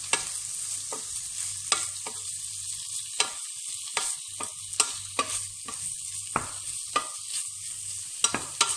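Spatula scraping and knocking irregularly against a stainless steel pot while shredded boiled chicken is stirred and tossed, over a steady sizzle of frying garlic and onion.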